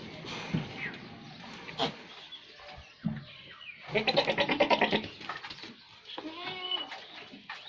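Goats bleating: a loud, quavering bleat about four seconds in, then a second call a couple of seconds later.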